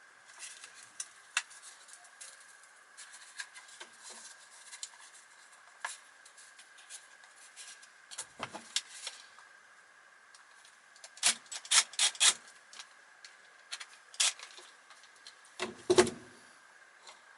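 Hands working the cable grip and mains cable out of a Henry vacuum cleaner's plastic body: scattered clicks, rubbing and rattling. There is a quick run of louder clicks a little past halfway and a single knock near the end.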